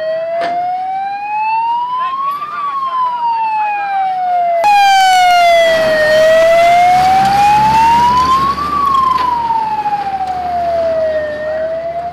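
Fire engine's wailing siren, gliding slowly up and down in pitch, about two and a half seconds each way. Partway through it turns suddenly louder, with engine and road rumble under it as the truck passes close.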